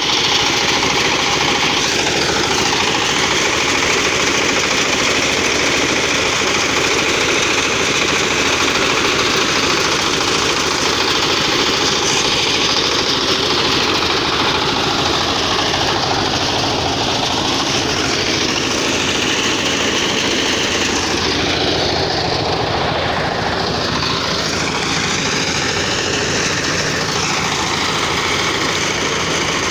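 Small single-cylinder diesel engine driving a paddy threshing machine, running steadily and loudly while rice sheaves are fed through the threshing drum.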